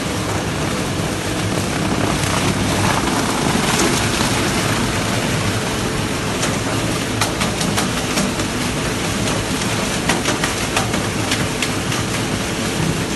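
Plastic-scrap dust remover machine running: a loud, steady mechanical din with a constant hum, joined from about halfway through by scattered sharp ticks and rattles.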